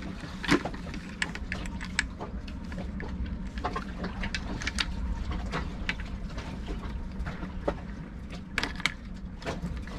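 Scattered sharp clicks and knocks from a SeaFrogs underwater camera housing being handled, as a camera is seated inside and the case closed and latched, over a steady low hum.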